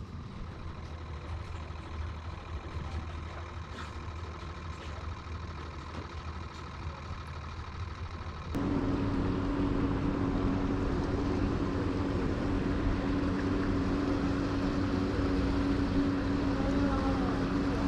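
An engine running steadily with a low hum. It gets suddenly louder about eight and a half seconds in, where a steady low drone comes in.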